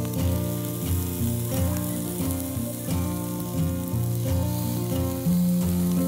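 Beef and chicken yakitori skewers sizzling on a charcoal grill, with background music playing over the sizzle.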